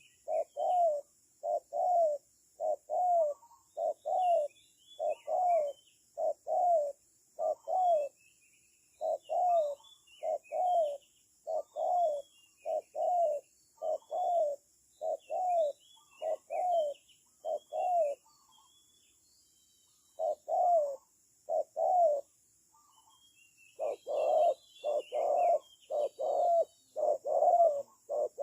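Spotted dove cooing: a long run of short, low coo notes, paced about one or two a second, with a pause of a couple of seconds just before the two-thirds mark and a denser run near the end. Faint high chirps of small birds sound in the background.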